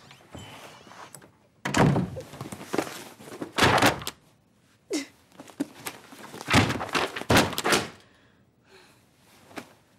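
A door slamming shut, followed by several more heavy thumps and knocks, about five loud impacts in all over six seconds.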